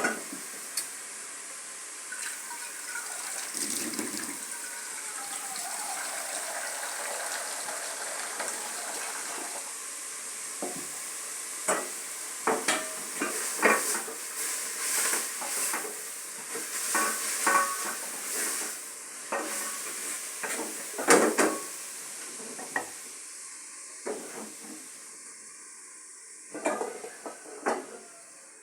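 Cooking pots and utensils clinking and knocking in irregular runs, over a steady hiss.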